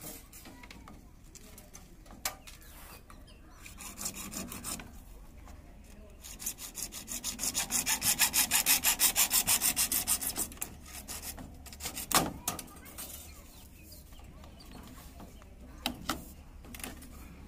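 Adhesive tape being pulled off its roll, as used to seal electrical PVC conduit ends against cement: a rasping rip of about four seconds with a fast, even flutter, swelling and then fading. A few light knocks come before and after it.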